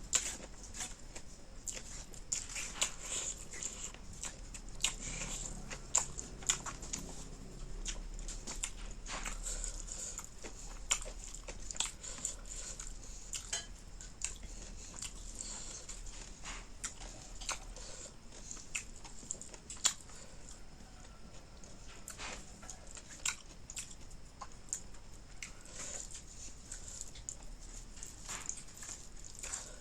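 Close-miked mukbang eating sounds: wet chewing and lip smacks, with irregular sharp clicks of the mouth.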